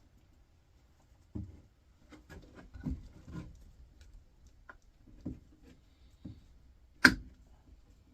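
Light knocks and rustles as a small motor's copper winding is worked with hand cutters, with one sharp snap of the cutters about seven seconds in.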